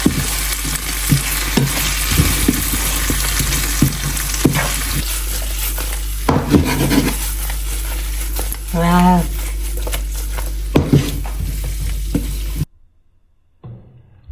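Chicken chilli sizzling as it fries in a pan, with frequent short knocks and scrapes of a spatula stirring it. The sizzle cuts off suddenly near the end.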